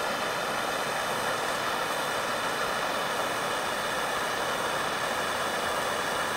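Hand-held MAP gas torch burning with a steady hiss, its flame held on the end of a hard-drawn copper tube to anneal it before the end is expanded.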